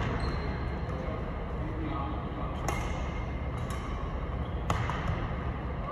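Badminton rackets striking a shuttlecock in a rally: a few sharp hits, the clearest two about two seconds apart, over steady hall noise and faint voices.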